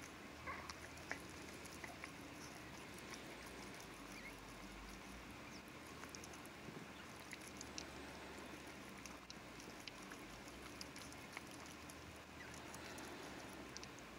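Faint small clicks and rustling from a mother dog tending her newborn puppies on newspaper, with a couple of brief high squeaks about a second in.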